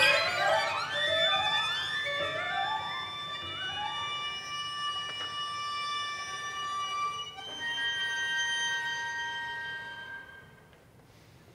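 A string quartet of two violins, viola and cello playing: rising glides stacked one after another in the first few seconds give way to high held tones, which shift to a new chord about seven seconds in and then fade away to near silence near the end.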